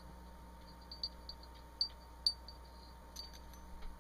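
Light metallic clicks and clinks of small steel parts as the firing pin is slid out of an AR-15 bolt carrier: about half a dozen scattered ticks, the sharpest near the middle, over a faint steady hum.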